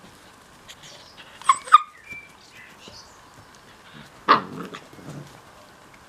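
Puppies yipping: two quick high yips about a second and a half in, then a louder bark a little after four seconds.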